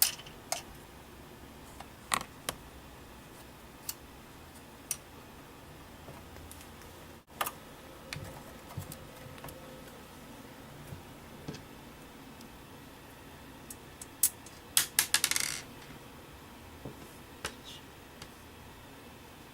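Scattered small metal clicks and clinks as screws and a screwdriver are handled on a DVR case while its cover is closed and screwed back on, with a quick run of clicks near the end.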